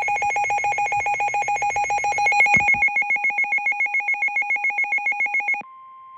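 Rapid electronic alert beeping, several beeps a second, with a brief thump about two and a half seconds in. At about five and a half seconds it switches abruptly to a steady single-pitch NOAA Weather Radio 1050 Hz warning alarm tone, the signal that a new warning is starting.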